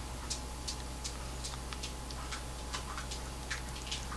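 Light, irregular clicks and ticks of hands rolling raw salmon slices around vegetables on a plastic cutting board, about a dozen small sounds at uneven intervals. A steady low hum runs underneath.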